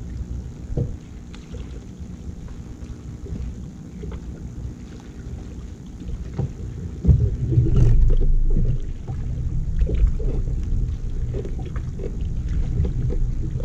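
Low rumble and scattered knocks from a fishing boat on the water, growing louder about seven seconds in.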